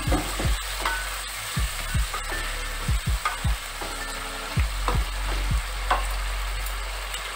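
A spatula stirring a wet vegetable curry simmering in a nonstick kadai, with a steady sizzle and irregular knocks and scrapes of the spatula against the pan.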